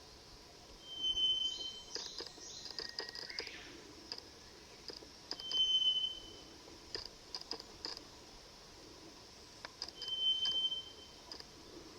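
A clear, steady high whistled note, the mysterious call heard in a beech forest, repeated three times about four and a half seconds apart, each lasting under a second. Faint short high chirps come in between.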